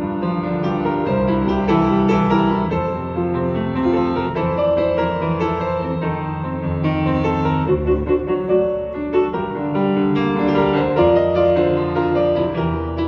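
Yamaha grand piano played solo: full chords over held bass notes, moving steadily from one chord to the next.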